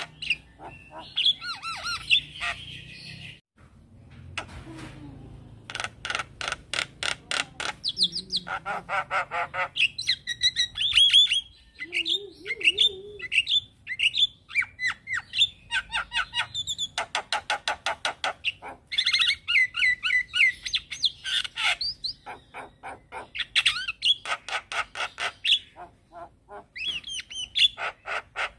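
Javan myna singing continuously, a mix of long runs of rapid clicking notes, harsh squawking chatter and short whistled glides.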